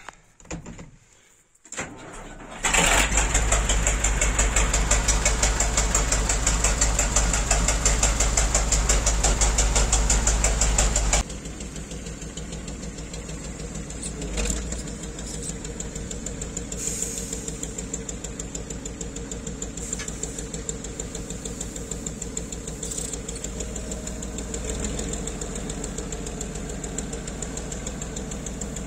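An old dump truck's diesel engine starts running loudly at about three seconds in, heard close up in the cab. From about eleven seconds in it is quieter, heard from outside as the engine runs on while the dump body tips and the grain is unloaded.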